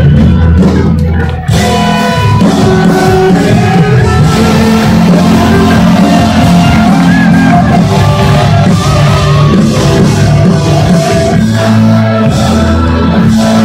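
Live rock band playing loudly through a PA system, with sung and shouted vocals over the band. The sound drops out briefly about a second and a half in, then carries on at full volume.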